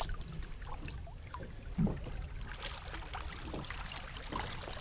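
Water lapping and trickling against a small boat's hull over a low steady rumble, with one low thump about two seconds in. Small splashes come in the second half as a hooked spurdog thrashes at the surface on the line.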